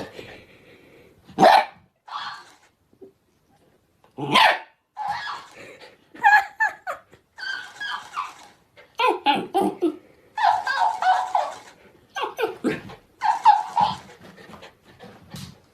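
A dog barking in a string of short, irregular bursts with pauses between them.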